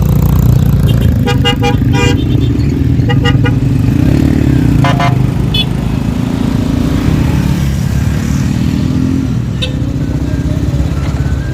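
Steady low rumble of a road vehicle's engine and road noise, with a quick series of short horn toots about a second in, two more around three seconds, and a longer honk about five seconds in.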